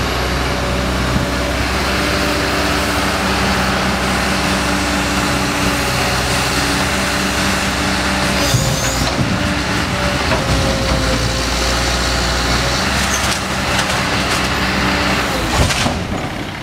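Heavy diesel engine of a Caterpillar hydraulic excavator running steadily at working revs, with a couple of short knocks of debris about halfway through and near the end.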